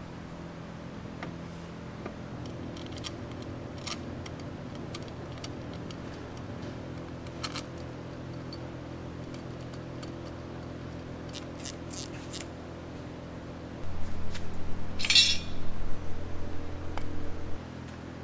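Light metallic clinks and taps of small parts being handled under a truck, over a steady background hum. About three-quarters of the way through, a louder, uneven low sound lasts for about four seconds.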